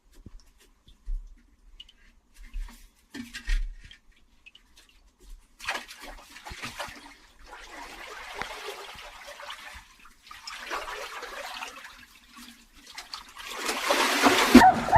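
Water pouring and splashing in three bouts of a second or two each, getting louder near the end, after a few soft knocks.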